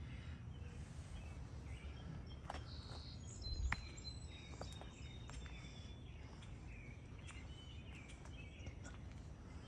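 Outdoor garden ambience: a steady low rumble with small birds chirping now and then. A single short knock a little past the middle of the first half.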